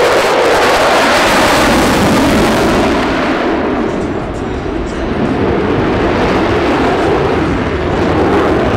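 F-22 Raptor's twin Pratt & Whitney F119 turbofan engines giving loud jet noise, a dense rumbling roar. Its high hiss fades over the first three seconds, leaving a deep rumble that dips briefly about four seconds in and then swells again.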